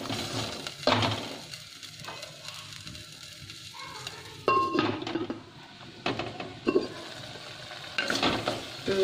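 Wooden spatula stirring and scraping a simmering potato-and-onion mixture in milk in a clay pot, in separate strokes with a quieter pause in the middle.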